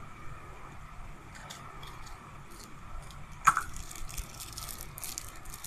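Hands handling a plastic-wrapped sticker packet and a plastic capsule, with faint clicks and crinkling of the wrapper. There is a brief squeak about three and a half seconds in, followed by denser crinkling.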